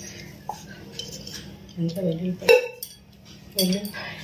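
Kitchen utensils clinking and knocking against a plastic tub, with one sharp knock about two and a half seconds in.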